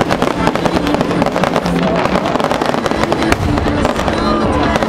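Fireworks display: a rapid, unbroken barrage of bangs and crackling from aerial shells bursting overhead.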